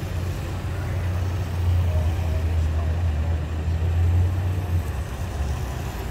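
Motorcycle passing on a wet road: a low engine rumble that swells for about three seconds in the middle, then eases.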